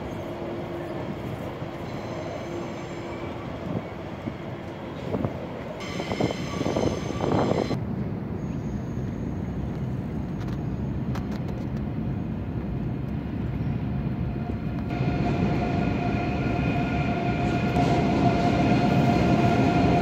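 Train running across a steel railway bridge: a steady rumble with a high whine. The whine is loud briefly about six seconds in, and grows louder again over the last few seconds.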